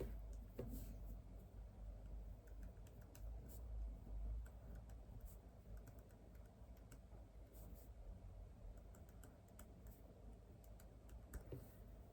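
Faint typing on a computer keyboard: irregular key clicks, with a low steady hum underneath.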